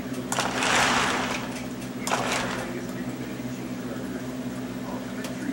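Lionel O-gauge toy train cars rolling along the track under a steady electric hum, with a louder rushing noise for about a second near the start and a shorter one about two seconds in.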